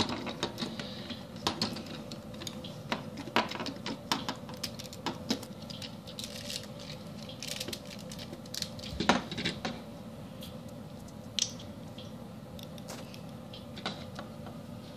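Plastic Lego bricks and plates clicking and rattling as they are handled and pressed together, in irregular clicks with the loudest about nine seconds in.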